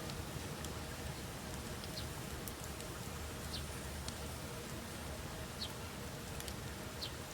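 Wood bonfire burning: a steady low rush of flame with sharp crackles and pops at irregular moments, several in all.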